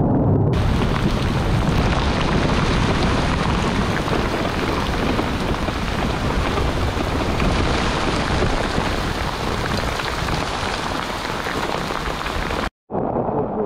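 Heavy rain, a loud, dense, steady hiss that cuts out abruptly near the end.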